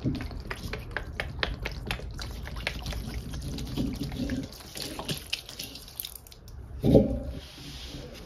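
Blue Ajax liquid cleaner squirting from its plastic bottle and splattering onto wet sponges in a stainless steel bowl, with many small drips and splashes. About seven seconds in comes a single louder thump as the soaked sponges are handled in the bowl.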